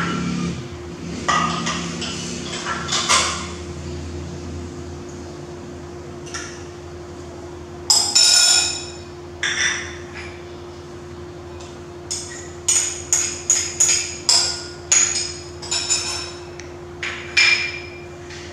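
Ceramic plates, bowls and small glass jars clinking and knocking as they are handled and set down, with a quick run of light clinks later on. A faint steady hum runs underneath.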